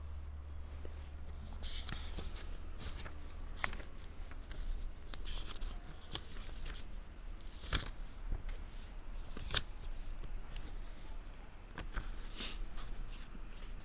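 Pages of a book being turned and handled: scattered paper rustles and soft clicks over a low steady hum.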